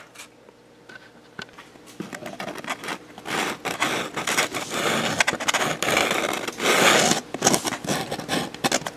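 Depron foam pieces scraping and rubbing as they are handled and a CA glue bottle's nozzle is drawn along a foam edge. The irregular scratchy scraping starts about two seconds in and goes on in uneven strokes.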